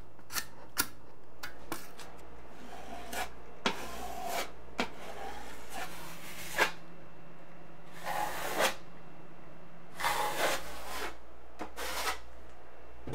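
Steel taping knives clicking and scraping against each other while mixing quick-setting joint compound, then several short scraping strokes as a knife spreads the compound over patches on the wall and ceiling.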